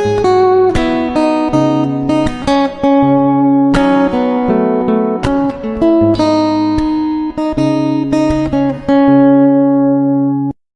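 Background music on acoustic guitar, plucked and strummed notes, ending abruptly near the end.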